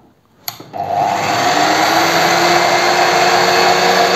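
ALLSOME BG-5157 bench drill-milling machine switched on at its first speed setting: a click of the switch about half a second in, then the motor spins up and runs with a steady hum and whine.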